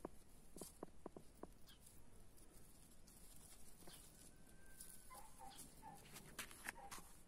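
Near silence: faint clicks and rustles of gooseberry leaves and stems being handled, and a few faint short clucks of a hen about five seconds in.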